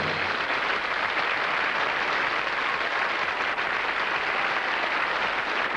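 Studio audience applauding, a steady, even clapping.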